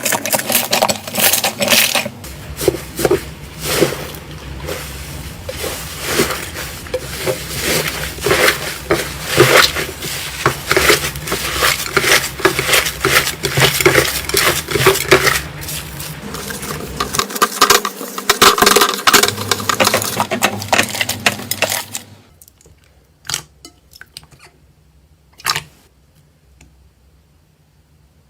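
Slime being squished and pressed by hand: a dense run of wet clicks, crackles and pops. About 22 seconds in it thins to a few separate clicks.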